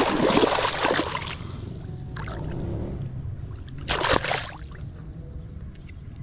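Water splashing as a woven plunge basket is shoved down into shallow water: a long churning splash in the first second or so, a short one about two seconds in, and another short splash about four seconds in.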